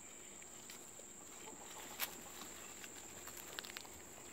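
Goats pulling oak leaves off the branches and chewing them: soft scattered snaps and rustles, with one sharper snap about two seconds in and a short run of clicks near the end. A steady high insect drone runs underneath.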